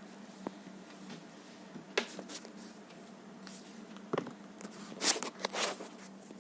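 Scattered handling noises: a few sharp clicks and short rustling scrapes, the loudest cluster about five seconds in, over a faint steady hum.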